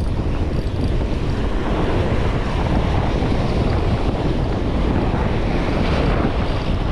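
Wind on the microphone over surf washing across the reef rocks, a steady loud rush with heavy low rumble.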